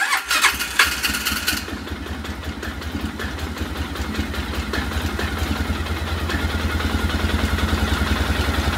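Polaris Ranger 500's single-cylinder four-stroke engine just started, uneven for about the first second, then idling steadily. It is being run to circulate freshly added oil after an oil change.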